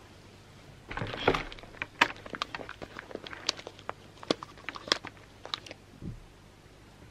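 Handling noise as headphones are picked up and put on: a brief rustle about a second in, then a run of irregular small clicks, taps and cable rattles close to the microphone, with one short low thump near the end.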